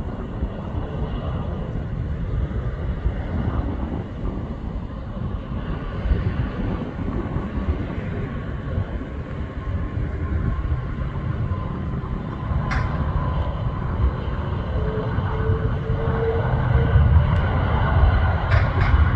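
Airbus A330 airliner landing, heard from a distance: a steady low jet rumble that grows louder over the last few seconds as the jet touches down and rolls along the runway.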